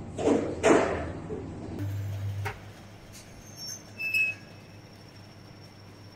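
Two short clatters near the start, typical of metal baking trays and a steel bakery rack knocking together. These are followed by a quieter hum with a few faint clicks.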